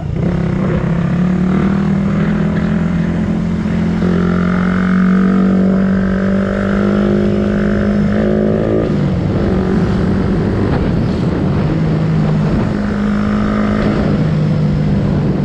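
Suzuki Raider 150 FI's single-cylinder four-stroke engine running under way. Its pitch holds steady, drops about nine seconds in, and climbs again near the end as the throttle changes.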